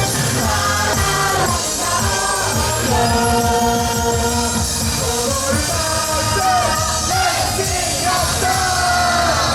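YOSAKOI dance-team performance music: a song with sung vocals over a steady, driving beat, played loud.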